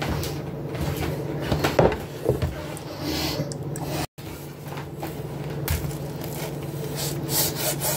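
Kitchen counter handling noises, with scattered clicks and knocks over a steady low hum; the sound drops out for a moment about halfway. Near the end a knife starts sawing through a toasted sandwich on a cutting board, a rhythmic scraping of about four strokes a second.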